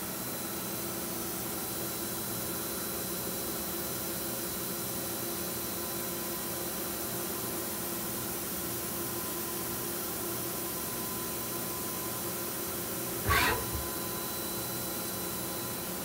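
Wasino G07-F CNC gang-tool chucker lathe running with its spindle turning at about 1,000 RPM: a steady hiss and hum with a few faint steady tones. About thirteen seconds in comes one brief, sharp, louder sound.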